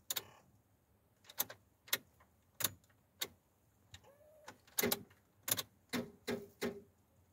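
About ten sharp, dry clicks at irregular spacing from a BAW truck's ignition and starter circuit as the driver tries to start it and the engine does not crank, which he takes for a flat battery.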